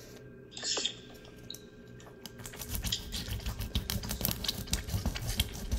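Small kitchen knife cutting through a rudderfish's (Kyphosus bigibbus) neck bone on a plastic cutting board to take the head off. It is quiet at first with a brief scrape, then from about two seconds in comes a rapid run of crunching clicks as the blade works through the hard bone.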